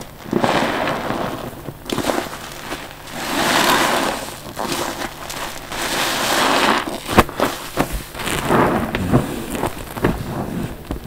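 A soaked sponge squeezed slowly several times, each squeeze a wet, crackling squelch of soapy liquid and foam, with sharp little pops between squeezes.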